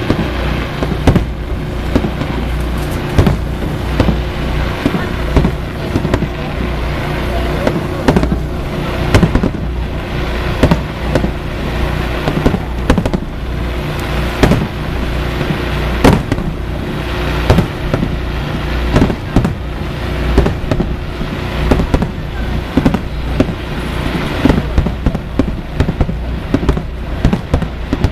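Fireworks display with aerial shells bursting in quick, irregular succession: sharp booms and cracks, often several a second, over a continuous din of echoing blasts.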